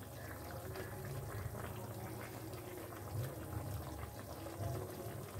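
Shukto, a milky vegetable curry, simmering in a frying pan: faint bubbling over a low steady rumble.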